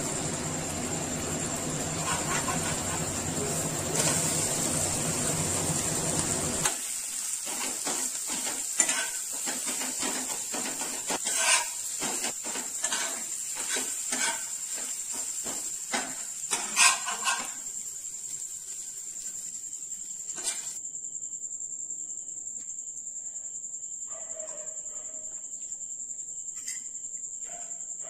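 Cabbage and egg frying in oil in a non-stick pan, a steady sizzle with a low hum under it that cuts off suddenly about a quarter of the way in. Then comes a run of utensil clicks and scrapes for about ten seconds, followed by a much quieter stretch with a few faint knocks. A steady high-pitched whine runs under it all.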